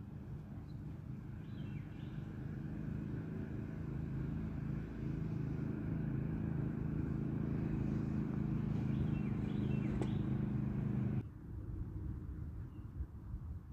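A motor engine hums steadily at a low pitch, growing louder over about ten seconds, then cuts off suddenly about eleven seconds in. A few faint bird chirps sound over it.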